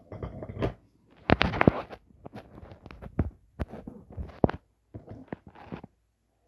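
Close handling noise: irregular knocks, clicks and rustles as a phone is picked up and repositioned by hand while dumbbell gear is handled. The loudest cluster of knocks comes about a second and a half in.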